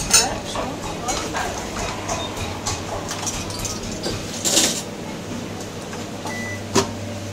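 Kitchen work noise: a few knocks and clatters, with a short, louder clattering burst about two-thirds of the way through, over a steady low hum and some faint voices.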